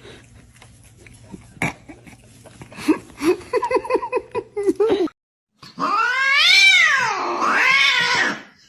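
A cat gives a quick run of short, pitched calls, several a second. After a brief break it lets out a loud, drawn-out yowl whose pitch rises and falls twice.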